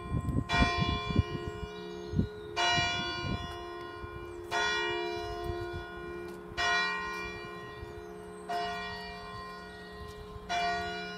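A single church tower bell striking the hour for midday: six strokes about two seconds apart, each ringing on and fading into the next. There are a few low bumps in the first three seconds.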